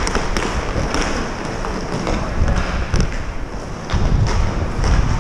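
Inline hockey play heard from a player-worn GoPro: skate wheels rolling on a plastic tile floor under a steady low rumble, with scattered sharp clacks of sticks and puck.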